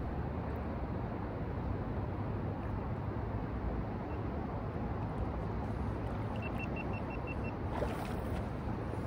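Steady outdoor wind rumbling on the microphone, with small waves lapping at the lakeshore. A short run of about seven quick, high peeps comes about two-thirds of the way through.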